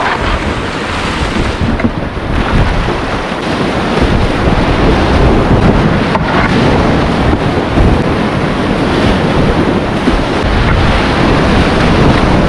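Whitewater creek rapids rushing loudly around a kayak, heard from the boat, with wind buffeting the microphone. The rush grows louder about four seconds in as the boat enters the heavier rapid.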